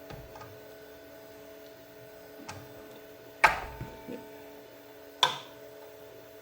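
Hand wrench clanking on the miter saw's blade arbor bolt as the blade is loosened for removal: a light click, then two sharp clanks about two seconds apart, the first the loudest with a brief ring. A faint steady hum runs underneath.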